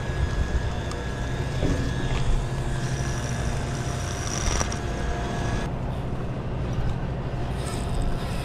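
Steady low drone of a large fishing boat's machinery running, with a faint steady whine on top.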